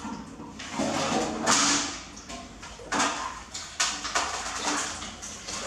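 Irregular knocks, clatter and scraping in a small tiled room as a baby macaque clambers into a plastic bucket holding a plastic scoop and a large aluminium basin is set down on the floor. The loudest stretch is about a second and a half in, with sharper knocks about three and four seconds in.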